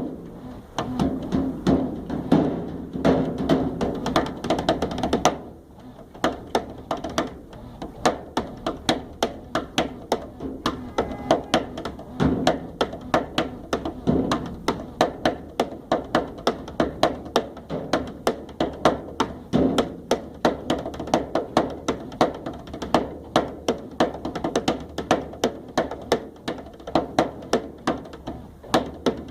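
Rhythmic hand percussion jammed along with a washing machine: quick taps and dull thunks at a steady beat, several strokes a second, with a brief drop about five seconds in.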